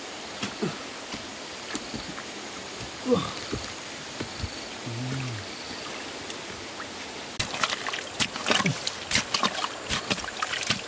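Stream water running steadily. About seven seconds in, a bamboo pole starts jabbing and scraping into a muddy, water-filled hole in a stream bank, with rapid repeated knocks and splashes.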